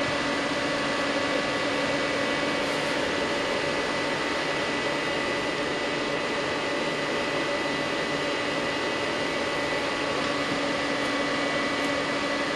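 Steady whir of the cooling fans in running bench test equipment, with a few steady hum tones under it.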